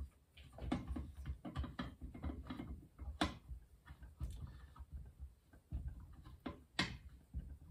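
Homemade valve spring compressor being worked on an Alfa Romeo 105 cylinder head while a valve spring is fitted: an irregular run of small metal clicks and knocks, with two sharper clicks about three seconds in and near the end.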